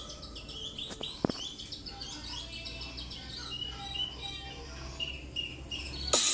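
Many short bird chirps and tweets over a low steady drone, the quiet nature-sound break of a DJ remix track. There is a quick falling swoosh about a second in, and loud music comes back in right at the end.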